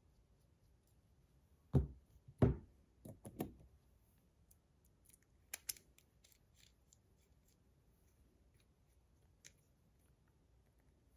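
Sharp metal clicks and clacks of a stainless steel fidget spinner and its bearing buttons being handled and fitted: two loud clacks about two seconds in, a quick cluster just after, then a few lighter ticks.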